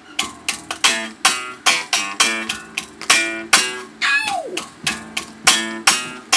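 Guitar strummed in a choppy, rhythmic funk groove: short sharp chord strokes several times a second, each dying away quickly, with one note sliding down in pitch about four seconds in.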